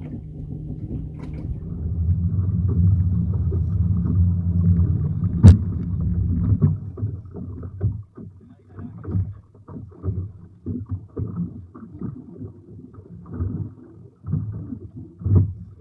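Small fishing boat's engine running with a steady low hum, and a single sharp knock about five and a half seconds in. The hum stops at about seven seconds, leaving irregular buffeting of wind and choppy water around the boat.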